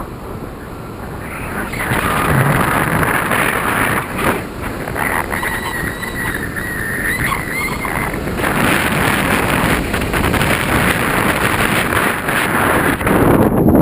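Wind rushing over the microphone of a camera mounted on a paraglider in flight, a steady noise that grows louder about two seconds in. A faint wavering whistle sounds through the middle.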